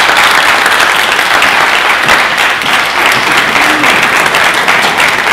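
Audience applauding in a dense, steady clapping.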